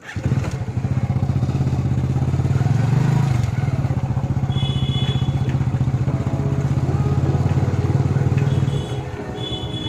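Hero iSmart motorcycle's single-cylinder engine running steadily, easing off slightly near the end.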